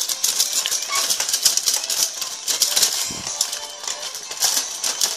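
Rock'em Sock'em Robots plastic boxing toy in a flurry of punches: a fast, continuous clatter of plastic clacks as the two robots' arms hit each other.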